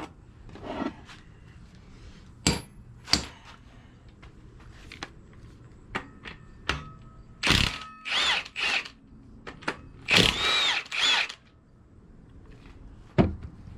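A handheld power tool, such as a drill or power ratchet, runs in several short bursts with a whine that rises and falls. It is working on the connecting-rod cap bolts of a Pontiac G8's V8 during an engine teardown. Sharp metal knocks come a few seconds before and again near the end.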